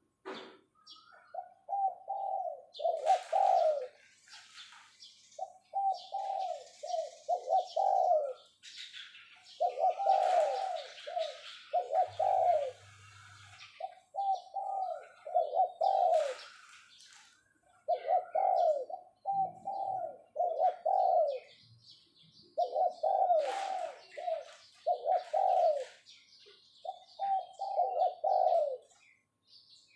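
Spotted dove cooing its 'phoh-phoh' calling call, short coos in repeated groups of two to four with brief pauses between groups.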